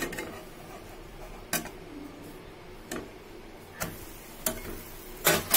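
A cooking utensil tapping sharply on a nonstick frying pan about five times, spread out, the last near the end the loudest, as a pancake is turned over.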